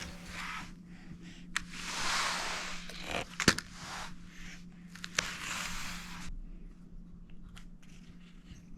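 Rustling and crinkling from something being handled, in several bursts of up to a second, with a few sharp clicks, the loudest about three and a half seconds in; a faint steady hum runs underneath.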